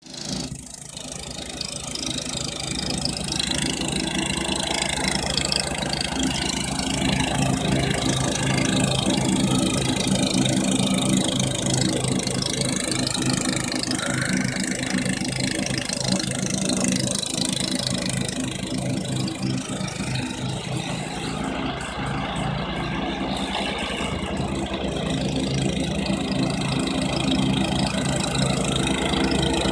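Honda HT-R3009 riding mower's engine running steadily while cutting grass.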